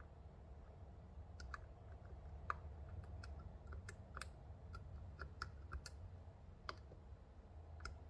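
A dozen or so faint, irregularly spaced metallic clicks of a dimple pick working the pins of a Mul-T-Lock Classic pin-in-pin cylinder under tension, the sharpest about two and a half seconds in.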